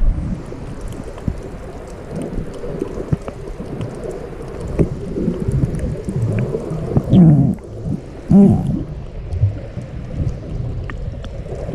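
Muffled underwater noise heard through a submerged camera: a steady low water rumble with scattered faint ticks, and two louder short warbling sounds about seven and eight and a half seconds in.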